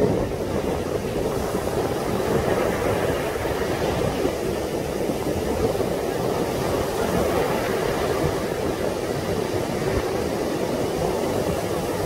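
Heavy surf breaking on a sandy beach, a steady rushing wash of waves, mixed with strong wind buffeting the microphone.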